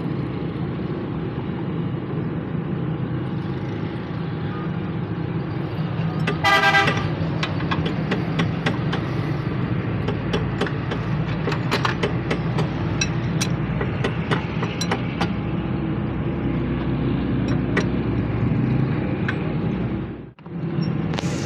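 Steady low rumble of a motor vehicle running, with a car horn tooting briefly about six and a half seconds in and a string of sharp clicks and knocks through the middle.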